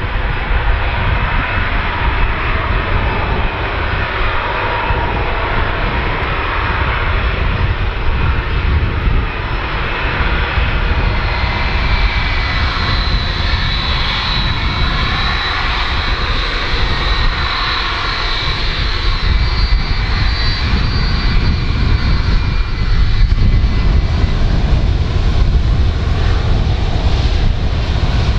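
Boeing 757-223 freighter's two Rolls-Royce RB211 turbofans running at taxi power: a steady jet rumble and hiss. A high fan whine comes in about halfway through, and the sound grows louder near the end as the aircraft comes closer.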